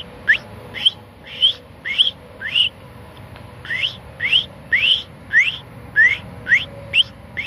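A person whistling an imitation of an American robin's sharp 'preep' call with the tongue against the palate just behind the teeth: a quick series of short whistles, each rising in pitch, about two a second, with a brief pause about three seconds in.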